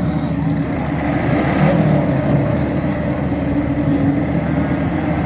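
Engines of racing riding lawn mowers running loud and steady, their pitch shifting as they rev about a second and a half in.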